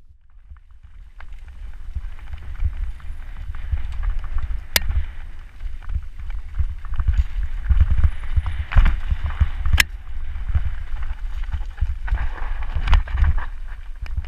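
Canfield Yelli Screamy 29er hardtail mountain bike descending a rocky dirt singletrack at speed: tyres crunching over dirt and stones and the bike rattling, under heavy wind buffeting on a helmet-mounted camera. Two sharp knocks from the bike, about five and ten seconds in.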